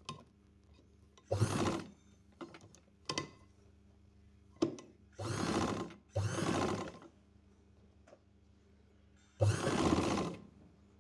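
Sewing machine stitching in four short runs, about half a second to a second each, the longest near the end, with a few single clicks in the pauses between runs.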